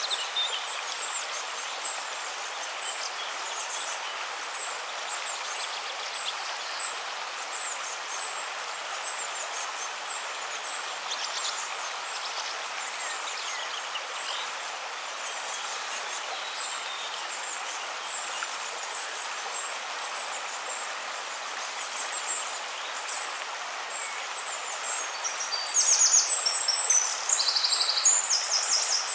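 River water running steadily, with small birds chirping in short high calls. About 25 seconds in, a bird sings louder in quick runs of high notes for a few seconds.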